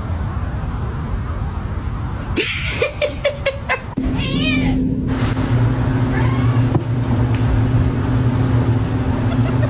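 A cat meowing: a quick run of short calls, then a wavering call and a rising one, over a steady low hum that starts about four seconds in.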